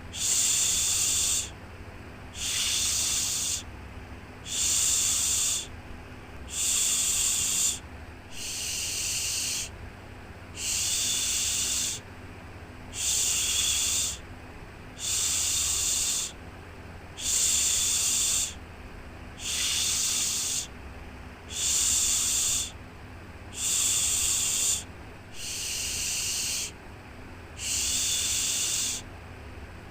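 Rhythmic shushing, a 'shhh' repeated about once every two seconds, each lasting a little over a second, the kind of shush used to soothe a baby to sleep. A faint steady low hum runs underneath.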